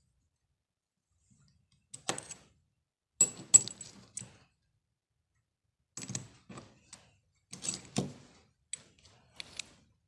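Broken halves of a brass door-lock cylinder and its key clinking and clattering against each other and a hard surface as they are handled and picked up, in several short runs of metallic clinks with pauses between.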